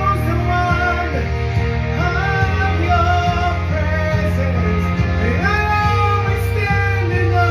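A song: a voice singing long notes that bend and glide over a band with a steady low bass.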